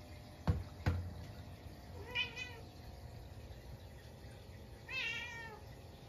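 Munchkin cat meowing twice, a short call and then a longer one about three seconds later that wavers and falls in pitch, while it watches a stink bug that has got into the room. Two sharp knocks come just before the meows, about half a second apart.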